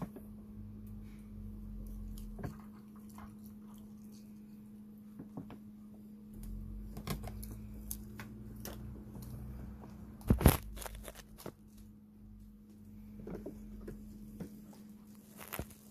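Red fox moving about right beside the microphone: rustling and rumbling as it brushes close, sharp knocks with the loudest about ten seconds in, and crunching as it chews food near the end. A steady low hum runs underneath.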